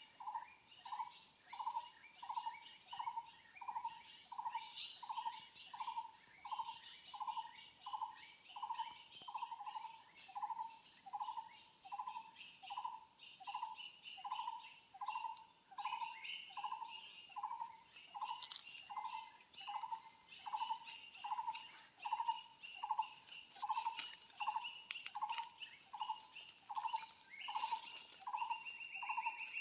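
An animal call, a short note repeated very evenly about one and a half times a second, over a chorus of chirping insects and a steady high insect whine.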